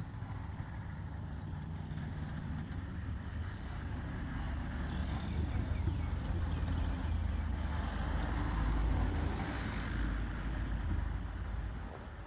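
A motor vehicle's engine rumbling low and steady, swelling louder about two-thirds of the way in and then fading, as if driving past.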